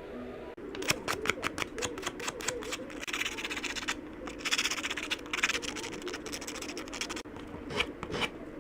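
Sandpaper rubbed by hand over the rough cut edges of a metal key: a quick run of short scratchy strokes, then longer rasping passes, and a few more strokes near the end.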